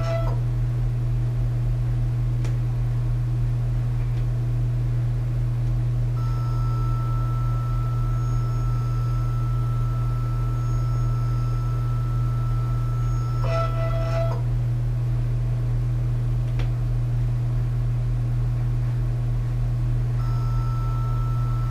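Kudo3D Titan 1 DLP resin 3D printer running mid-print: a steady low hum, with a short pitched motor whine at the start and again about 13 to 14 seconds in as the build platform moves between layers.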